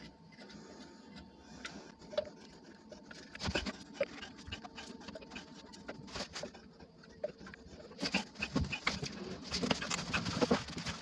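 Small clicks, taps and scrapes of hands working a grey PVC tee fitting: solvent cement brushed on and the tee pushed onto the pipes, then paper towel rustling as the joint is wiped. The handling noises get busier in the last few seconds.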